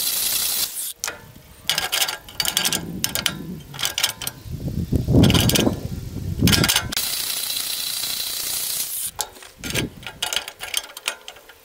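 A cordless angle grinder grinds steel for about a second and then cuts off. Irregular metal clanks and scrapes follow as the heavy steel pieces of a rotary cutter's stump jumper are shifted and test-fitted on a steel bench, with one loud clatter around the middle. A second stretch of the same steady high whine lasts about two seconds, and a few more clanks come near the end.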